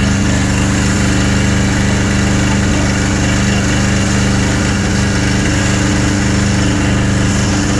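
Fire truck engine running steadily at a constant pitch, driving the pump that feeds the hose jet onto the fire, with a hiss over it.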